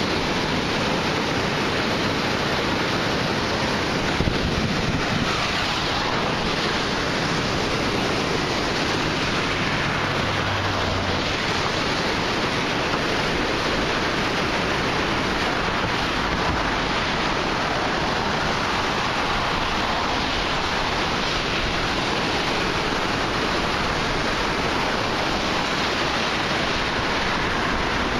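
Floodwater rushing through a drainage channel in a steady, continuous rush.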